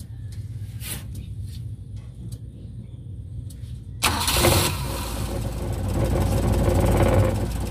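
Suzuki Multicab's F6A three-cylinder engine being cranked, with a low steady rumble for about four seconds, then catching suddenly and running. This is the first start after the no-start fault was traced to a fuse.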